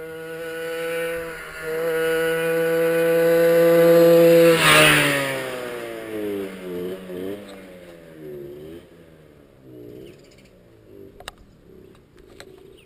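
Garelli Cross Brianza 50 cc two-stroke moped riding past at steady revs, growing louder until it passes close about five seconds in, where its pitch drops. Its revs then rise and fall as it pulls away and fades.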